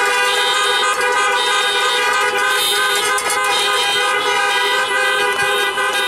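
Many car horns honking together in one long continuous chorus, several horn pitches overlapping and held without a break.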